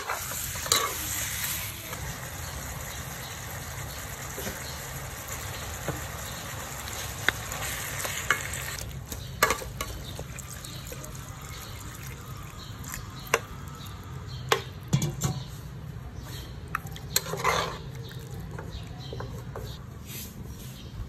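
Minced pork with prahok frying in a nonstick wok as it is stirred with a wooden spatula: a steady sizzling hiss broken by scattered sharp knocks and scrapes of the spatula against the pan.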